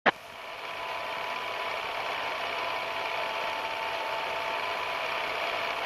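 A brief click, then a steady aircraft engine drone fades in over the first second and holds even, with a faint steady hum in it.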